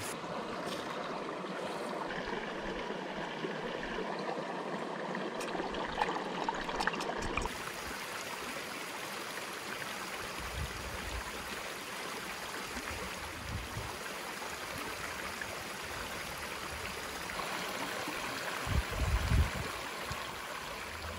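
Small rocky stream running over stones: a steady rush and babble of water. A few light clicks come in the first seven seconds or so, and brief low thumps near the end.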